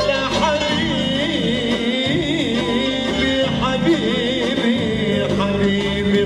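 Live Middle Eastern band music: a male singer comes in just after the start with a wavering, ornamented melody over amplified oud, electric guitar, keyboard and electronic drums.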